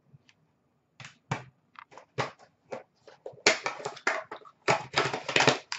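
Trading cards and plastic card holders being handled and set down: irregular clicks and rustling that start about a second in and grow thicker in the second half.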